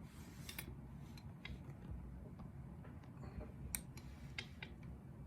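Light, irregular metallic clicks and ticks of a lock pick working in a challenge lock's keyway, with one sharper click a little after halfway.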